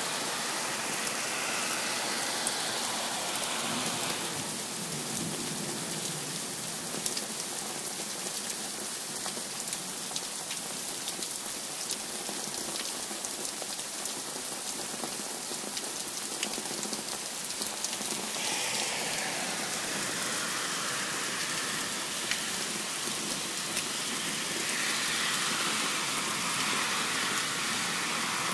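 Heavy rain pouring down: a steady hiss with many small drop impacts close by. The hiss sounds brighter in the first few seconds and again from about two-thirds of the way through.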